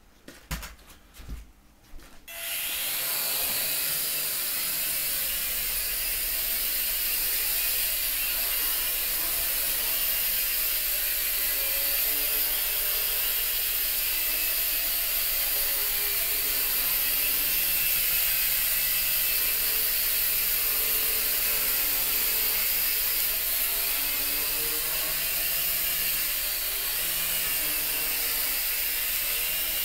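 J Perkins Twister micro quadcopter's four small electric motors and propellers starting about two seconds in, after a few light clicks, then buzzing steadily and high through take-off and hover, the pitch wavering a little as the throttle changes.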